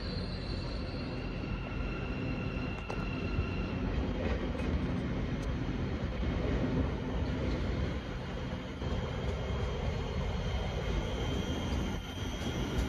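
Thameslink Class 700 electric multiple unit running slowly past over pointwork, a steady rail rumble with thin high tones coming and going and a few faint clicks.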